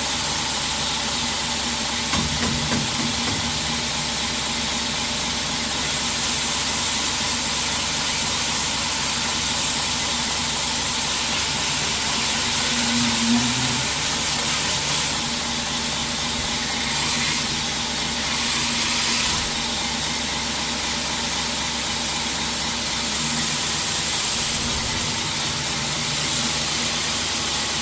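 2x72 belt grinder running with a steady, hissing abrasive belt while a cheap rubber shoe sole is pressed against the moving belt to clean wood resin out of its clogged grit. The hiss grows louder in several stretches.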